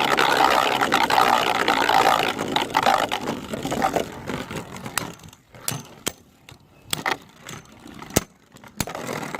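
Two Beyblade spinning tops, a 3D-printed Drakken and a Choz-Achilles, whirring and grinding against each other and the plastic stadium floor for the first four seconds or so. Then they die down into scattered sharp clicks of hits.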